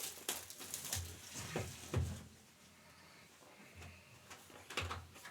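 Trading cards and packs being handled on a table: a run of light clicks, taps and rustles, quieter for about a second in the middle.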